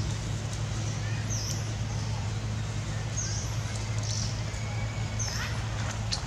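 Outdoor ambience: short high bird chirps and whistled glides repeating every second or two over a steady low hum.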